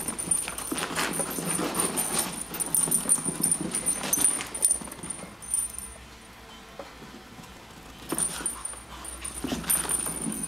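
Small dogs making excited noises while playing, in irregular bursts. The sounds die down for a couple of seconds just past the middle, then pick up again.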